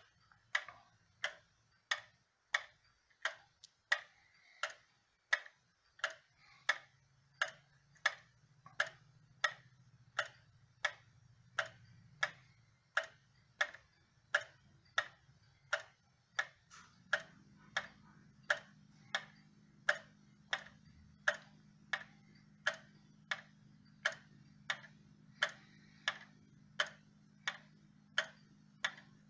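Sessions banjo wall clock's time-only brass movement ticking steadily, a little under two ticks a second.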